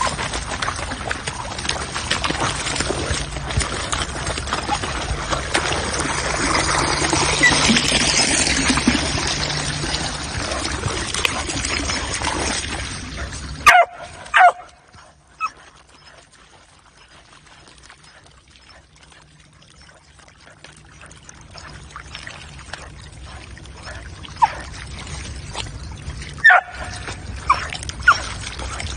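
Muddy water running and splashing as a puppy paws a channel through wet mud. The water is louder in the first half and drops off suddenly about halfway through, with a few short dog whimpers.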